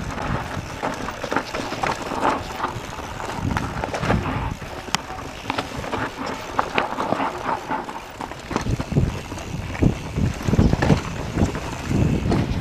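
Mondraker Summum downhill mountain bike riding down a dirt forest trail: tyres on dirt, with the bike rattling in many short sharp clicks and knocks. Wind buffets the camera's microphone, in heavier low gusts over the second half.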